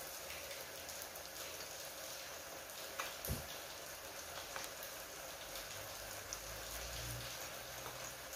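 Balls of banana batter deep-frying in oil in a frying pan: a steady crackling sizzle, with a soft knock about three seconds in.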